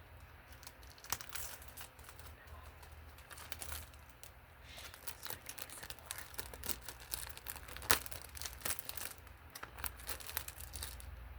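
Plastic wrapping being torn and crinkled off a DVD case: a run of irregular crackles and rustles, with a sharp snap about eight seconds in.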